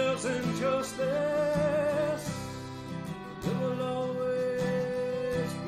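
Live acoustic folk song: a singer holds long, wavering notes over strummed acoustic guitar chords.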